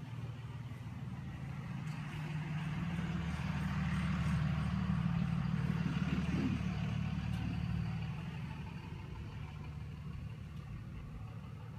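A low, steady engine hum, like a vehicle idling or moving slowly nearby, that grows louder over the first few seconds, peaks around the middle and then fades.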